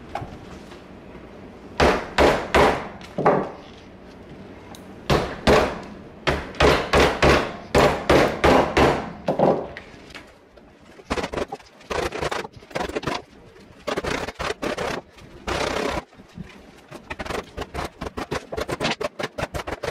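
Wooden mallet pounding the leather pocket of a new Wilson A2K baseball glove, in bursts of strikes at about two a second with short pauses between, to break in the stiff glove and form its pocket.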